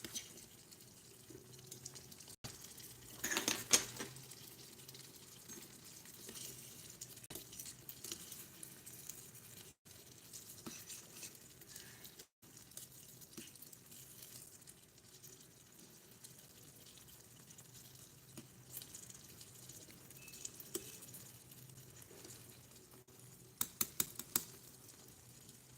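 Small clinks and scrapes of a utensil against a miniature cooking pot over a faint steady hiss, with a quick cluster of sharper clinks about three seconds in and another near the end.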